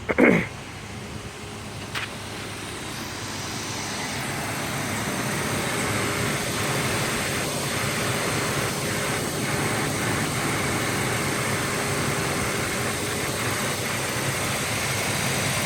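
Truck engine idling while the engine-driven radiator fan comes up to speed as the engine warms: the running sound swells from about two to six seconds in, then holds steady with a faint hum. A brief loud sound drops in pitch right at the start.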